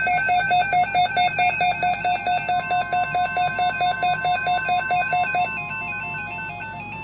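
Weather radio alert: a rapid electronic beeping, about four to five beeps a second. A steady single-pitch tone near 1 kHz joins about two and a half seconds in, typical of the NOAA Weather Radio 1050 Hz warning alarm tone. The beeps grow weaker in the second half while the steady tone continues.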